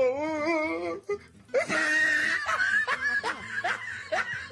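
People's voices: a drawn-out, wavering cry lasting about a second, then a run of laughter in short, rising bursts.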